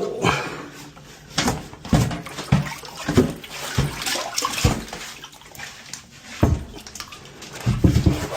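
Irregular knocks, clunks and short scrapes of hands-on plumbing work around a leaking toilet, a few strokes each second, some of them wet-sounding.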